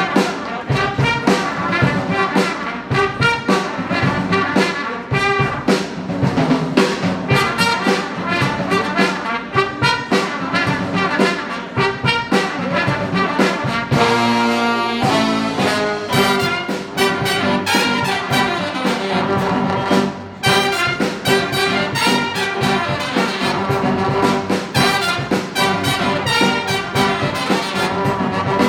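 A jazz big band playing an up-tempo tune, trumpets and trombones over a busy drum beat. About halfway through the ensemble holds one long chord before the driving rhythm comes back in, with a short break a few seconds later.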